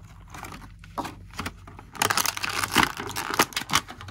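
Thin clear plastic packaging trays crinkling and crackling as they are handled and flexed, with denser, louder crackles from about two seconds in.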